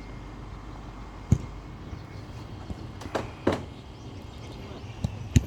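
A few sharp thuds of a football being kicked, the loudest just over a second in and two close together near the end, over a steady outdoor background noise.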